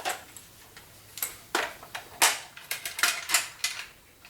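Handling of hand tools and hardware: a scattered series of sharp clicks and light metal clinks, about a dozen in all, with no motor running.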